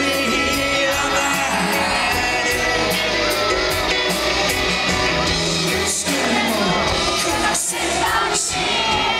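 Live rock band playing loudly, with a lead vocal singing over a steady beat driven by cymbal strokes.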